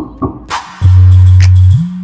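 Dance music played back over loudspeakers. A quick drum beat of about three hits a second gives way to a crash, then a loud, sustained deep bass note that slides up in pitch near the end.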